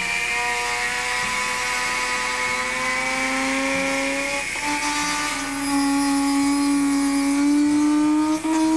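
Dremel rotary tool with a small grinding stone running at high speed, touched lightly along the mold seam of a cast reproduction fish to grind it down and texture it. A steady whine whose pitch steps up a little about halfway through, with a brief dip just before the end.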